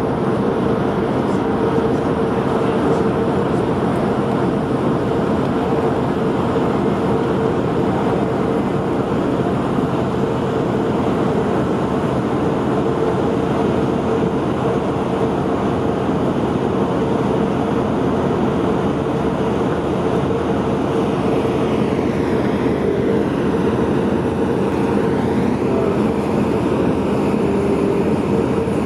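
Marine diesel engines running steadily: a constant droning hum over a wash of engine and water noise.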